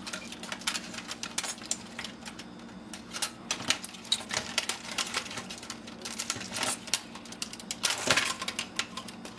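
Irregular clicking and tapping of small plastic and metal parts as a camcorder is pulled apart by hand, its wiring connectors being unplugged, with a few louder clacks about four and eight seconds in.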